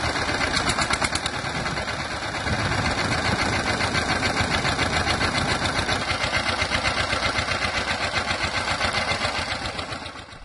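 Miniature toy tractor running as it drives, a steady, rapid chugging like a small engine that fades just before the end.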